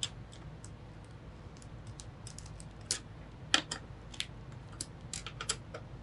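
Scattered light clicks and taps, irregular and of varying strength, from small hard parts and a screwdriver being handled while screws are fitted during a PC assembly.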